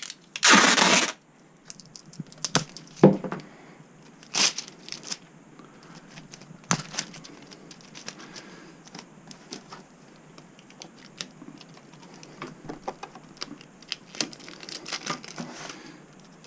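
Brown packing tape ripped off the roll in one loud rasp about half a second in, then torn and smoothed down onto a cardboard cover, giving scattered sharp crackles and taps.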